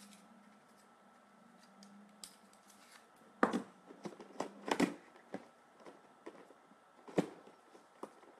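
Handling noises from a boxed collectible figure's cardboard packaging being opened: a few sharp taps and scrapes, clustered around three and a half to five seconds in, with one more about seven seconds in.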